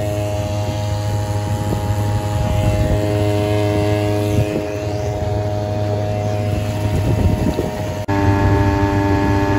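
Sican 3.6 HP 52cc two-stroke outboard motor running steadily at speed, driving an aluminium jon boat, with water rushing and splashing along the hull. About eight seconds in the sound breaks off sharply and carries on with the engine note slightly changed.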